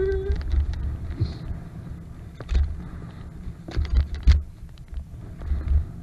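Wind buffeting the microphone during a scooter ride over rough sandy ground: a gusty low rumble, broken by a few sharp knocks and rattles about halfway through.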